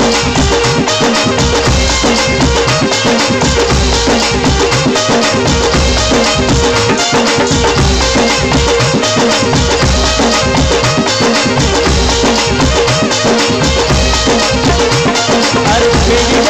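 Instrumental passage of Rajasthani folk devotional music: a steady beat of drums with a shaking rattle over held melodic tones.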